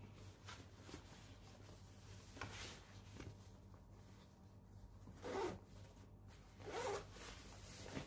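Zipper on a Victorinox Altmont Active Compact backpack being pulled, with a faint zip stroke a little over two seconds in and two louder strokes about a second and a half apart past the middle.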